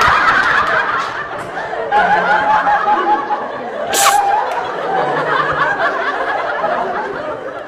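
People laughing and giggling, with a short, sharp burst of noise about four seconds in.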